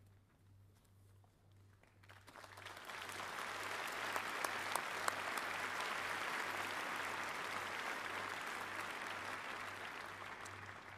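Large audience applauding. The clapping starts about two seconds in, swells quickly into a dense steady applause, and eases off near the end.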